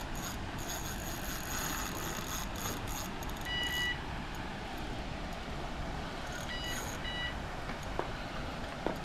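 Fishing reel's drag clicking in short runs through the first three seconds as a big fish pulls line. A steady background rush runs throughout. Electronic beeps sound twice: one held beep about three and a half seconds in, then a few short beeps about three seconds later.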